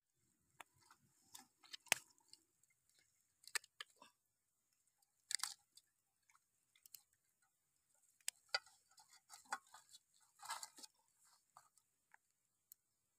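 Faint wet squelching and scattered clicks of hands handling a raw plucked goose and pressing it down onto lemongrass stalks in a pot.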